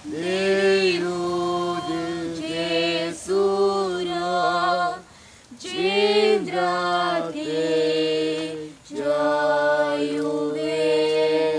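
Unaccompanied choir singing in long held notes, phrase after phrase with short breaks between them.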